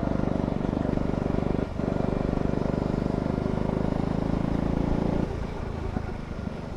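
Go-kart engine running steadily under throttle, with a very brief lift about two seconds in. A little after five seconds in the throttle comes off and the engine falls quieter.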